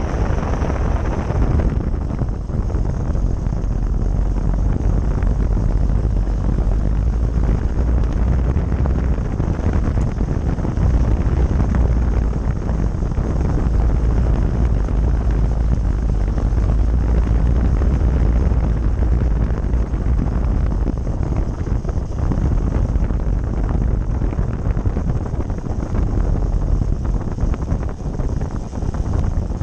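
Motorcycle riding at speed, heard from a camera mounted low beside the front wheel: a steady heavy low rumble of wind on the microphone mixed with engine and tyre noise. The brighter hiss on top eases about two seconds in.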